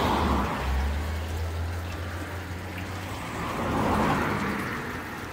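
Running, splashing water: a rain-like rush that swells at the start and again about four seconds in, over a steady low rumble.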